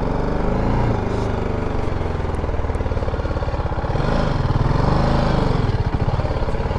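BMW G310 GS single-cylinder motorcycle engine running at low speed as the bike rolls slowly along, the revs rising and falling briefly about a second in and again around four to five seconds in.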